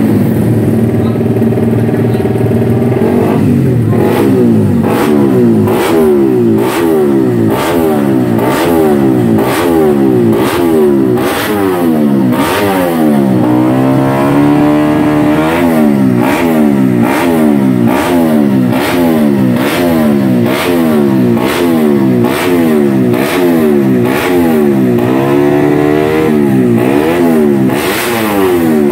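Race-tuned Yamaha MX-King 150's single-cylinder four-stroke engine revved on the stand: quick throttle blips, the pitch rising and falling about once a second, with a few longer held revs at the start, about halfway through and near the end.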